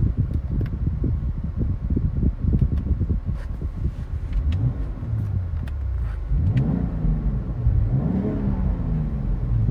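A BMW X3 M Competition's 3.0-litre twin-turbo straight-six running under load: an uneven low rumble at first, then from about halfway the engine pitch rises and drops back several times as the car accelerates through the gears.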